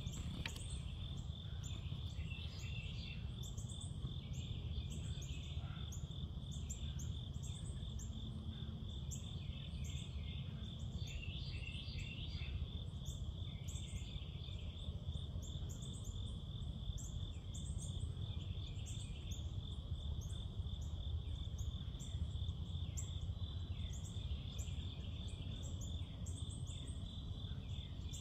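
Night insect chorus: a steady, rapidly pulsing cricket trill, with short high chirps repeating over it and a steady low rumble beneath.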